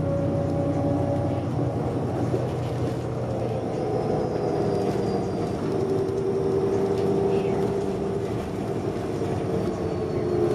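Cabin of a 2006 New Flyer D40LFR transit bus under way: its Cummins ISM inline-six diesel and Voith automatic transmission running, with a steady whine that drifts slowly in pitch over a constant road and engine hum.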